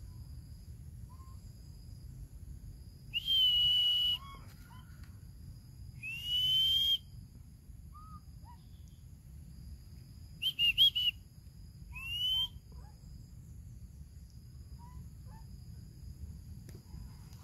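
Four high, clear whistles. The first is held level for about a second, the second and fourth rise in pitch, and the third is broken into a quick run of short notes. Faint short chirps and a steady, faint high-pitched hum sound behind them.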